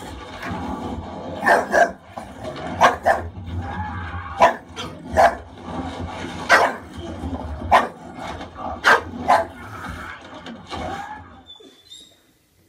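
English bulldog barking at the television: about a dozen short, loud barks a second or so apart, some in quick pairs, over the low sound of the programme's soundtrack.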